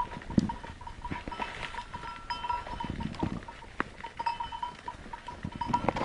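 Livestock bells on a flock of sheep or goats ringing continuously in uneven pulses, with short rustles and clicks from dry brush and grass.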